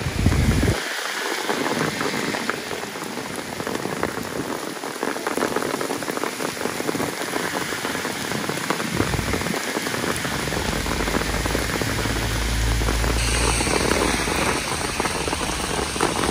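Heavy downpour of rain, a steady dense hiss of drops falling on surfaces all around. A low rumble joins it about two-thirds of the way through.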